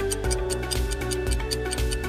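Upbeat background music with a steady beat and a light ticking, about four ticks a second, running under a quiz countdown timer.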